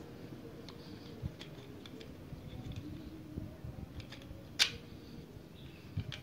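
Light plastic taps and clicks as a diecast model car's plastic interior tub is handled and fitted onto its plastic chassis, with one sharp click about halfway through and another near the end.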